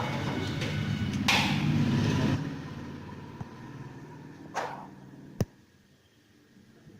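An engine running steadily, dropping away about two and a half seconds in and fading. A swish, then a single sharp click near the end.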